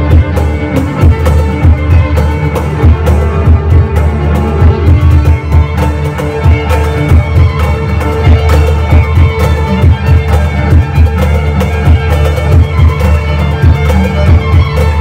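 Live violin, cello and hand percussion trio playing an upbeat piece, the violin carrying the melody over the cello's bowed bass line and a steady stream of quick drum strokes.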